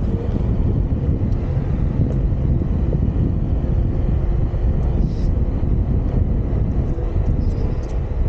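Onewheel Pint with a Craft & Ride Burris tyre rolling steadily over asphalt at riding speed: a constant low rumble from the wheel on the pavement, with wind rushing over the microphone.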